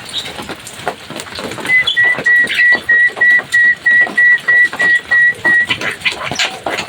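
Javan myna song: a run of about a dozen short whistled notes at one steady pitch, about three a second, over rapid clicking chatter.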